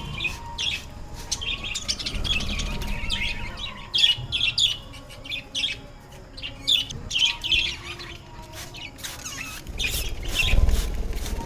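Budgerigars chirping and chattering in quick, rapid bursts of high calls.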